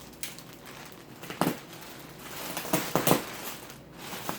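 Plastic packaging crackling and crinkling as it is cut open with a knife and pulled apart, with a sharp crack about a second and a half in and a quick cluster of cracks around three seconds.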